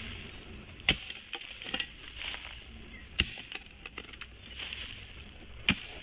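A hoe striking into soil while a pit is dug: three heavy strikes about two and a half seconds apart, with lighter scrapes and knocks of earth between them.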